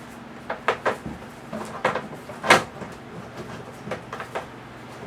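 Plastic worm-bin trays and parts knocking together as they are handled: a string of short, sharp clacks, the loudest about halfway through.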